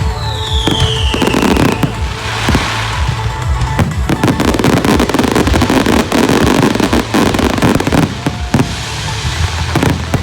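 Fireworks going off in rapid succession, a dense run of bangs and crackles, with a falling whistle in the first couple of seconds. Music plays underneath.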